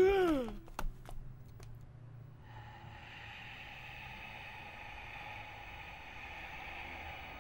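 A woman's short startled scream that rises and then falls in pitch, followed by a couple of light knocks. About two and a half seconds in, a steady suspense-music drone sets in.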